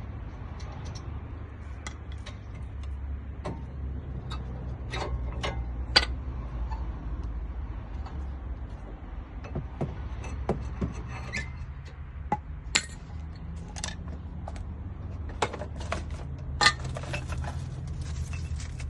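Scattered sharp metallic clinks and taps of hand tools and brake parts being handled during a brake pad change, at irregular intervals and loudest about 6 seconds in and near the end, over a steady low hum.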